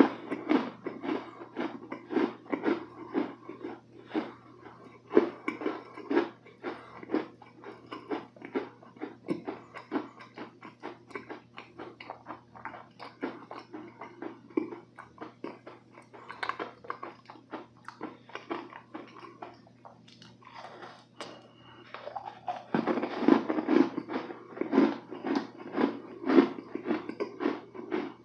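Close-miked chewing of a soft, moist cookie, with many small wet mouth clicks. Near the end the chewing turns suddenly louder after a fresh bite.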